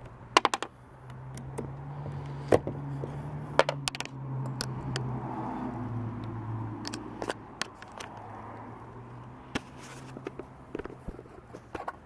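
Cordless impact wrench with an 11 mm socket on a long extension running for about seven seconds, backing a bolt out of a Seadoo jet pump housing, its pitch dropping a little partway through. Sharp metal clinks of the socket and tools come before it and here and there afterwards.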